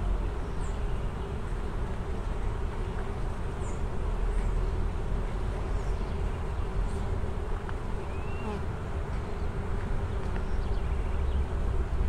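Swarm of bees buzzing among the blossoms of a flowering white ipê tree, a steady hum over a low rumble.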